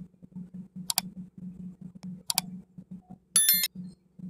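Two sharp mouse clicks about a second and a half apart, then a short bright bell chime: the sound effects of a like-and-subscribe button animation. Soft background music runs underneath.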